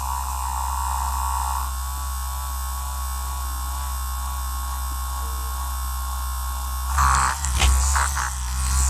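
A small electric vibrating massager buzzing with a steady low hum. From about seven seconds in come irregular rubbing and knocks as it is moved about.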